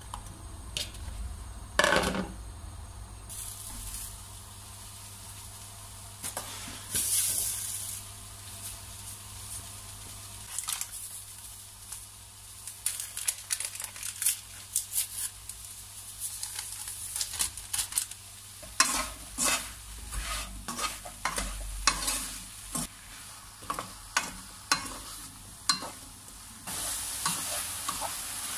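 Diced apples tipped into a nonstick frying pan and sugar poured over them, then a wooden spoon stirring, with a run of irregular knocks and scrapes against the pan. Near the end a steady sizzle of the apples cooking sets in.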